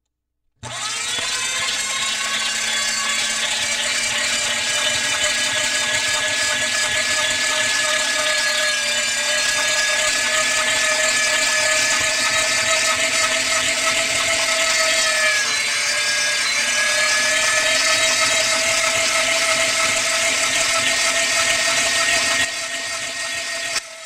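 An electric grinder starts suddenly and runs steadily: a motor whine over a wide grinding hiss. The whine sags briefly about fifteen seconds in, and the sound drops to a quieter level near the end.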